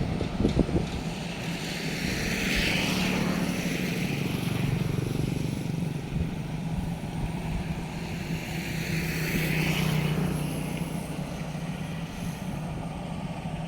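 Engine of a rice thresher (mesin dos) running steadily with an even drone, and a rushing hiss above it that swells twice, about two seconds in and again near ten seconds.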